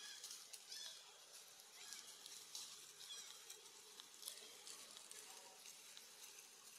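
Near silence: faint outdoor ambience with scattered soft ticks and a few faint high chirps.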